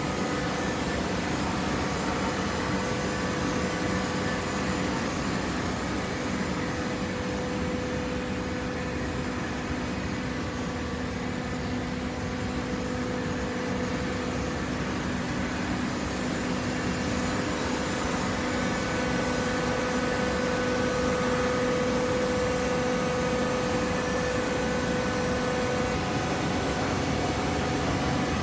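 Hydraulic baler's motor-driven pump running, a steady mechanical hum with a held whine that grows slightly louder in the second half.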